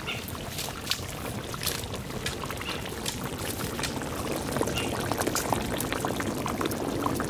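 Thick mustard curry bubbling hard in a large wok, a steady seething with many small irregular pops.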